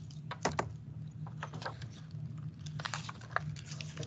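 A hardcover picture book being picked up and opened close to the microphone: scattered light clicks, taps and page rustles over a steady low hum.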